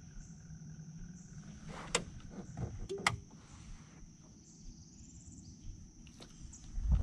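Steady high-pitched trilling of an insect chorus in the swamp, with a couple of light knocks about two and three seconds in.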